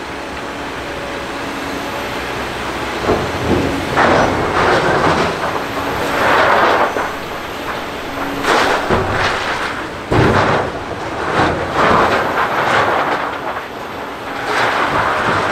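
Liebherr LH60 material handler running steadily for about three seconds. Then its 3 cubic metre clamshell grab digs into stone in a steel rail wagon, with repeated loud crunching and rattling of rock.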